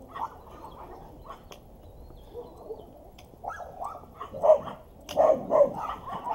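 Dogs barking in a rapid run of short barks that starts about halfway through and grows louder toward the end.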